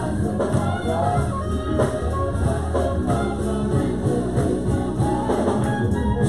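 Live gospel music: a group of singers on microphones singing together over a band.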